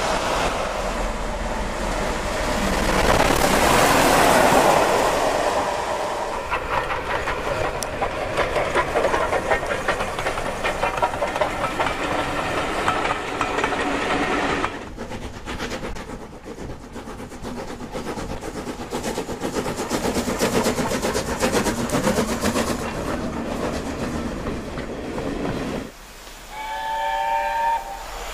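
Steam trains running past: locomotive exhaust beats and coach wheels clattering over rail joints, with the sound changing abruptly about halfway through. Near the end an LNER A4 Pacific's chime whistle sounds a chord of several notes for about two seconds.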